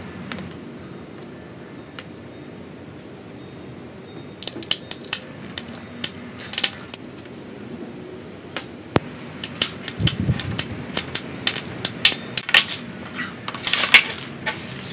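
Handheld ratcheting PVC pipe cutter clicking as it is squeezed around a PVC pipe, in clusters of sharp clicks that begin a few seconds in and grow busier toward the end.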